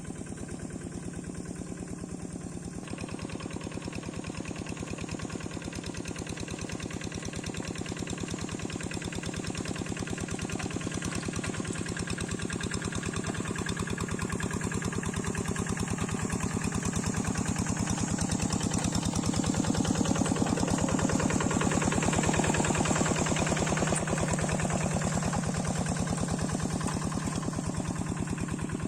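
Kubota single-cylinder diesel engine on a Quick hand tractor, running with an even, rapid beat. It picks up a little under three seconds in, grows gradually louder toward the middle, and eases slightly near the end.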